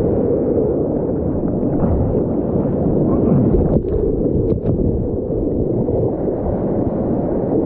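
Muffled, steady rush of surf and moving water heard close to the sea surface from a waterproof POV camera. About four seconds in there is a brief dip and a few sharp splashes as breaking whitewater washes over the camera.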